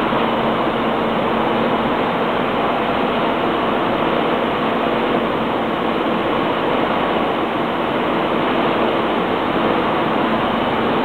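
Steady machinery noise of an aluminium continuous casting and rolling line running, with a constant hum of several steady tones over an even noise.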